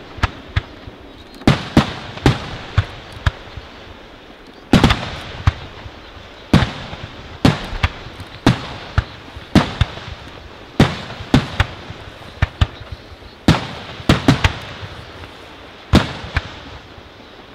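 Aerial firework shells bursting: a run of sharp bangs at uneven intervals, about one or two a second, each trailing off in an echo.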